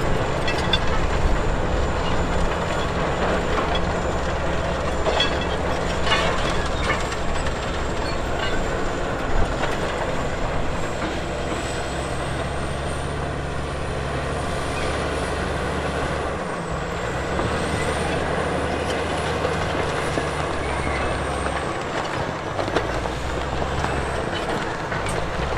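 Heavy diesel earthmoving machinery working, its engine note steady and then shifting a couple of times, with continuous clanking and rattling metal. A faint high whine rises and falls through the middle.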